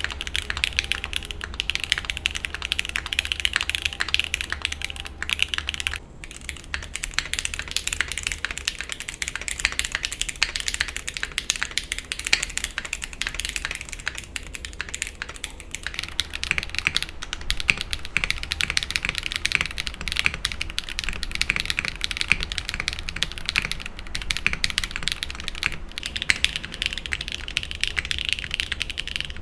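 Fast, continuous typing on custom-built mechanical keyboards with lubed switches, a dense run of keystroke clacks. About every ten seconds a different board takes over, with a brief lull about six seconds in.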